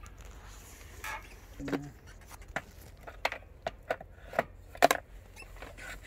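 A run of about eight or nine sharp, irregular clicks and knocks, the loudest near the end, as the plastic seed hoppers on a walk-behind multi-row vegetable seeder are handled and set in place.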